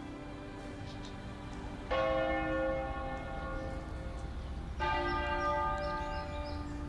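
Church bells ringing: two separate strikes, about two seconds in and again near five seconds, each ringing on and slowly fading, with a steady low rumble underneath.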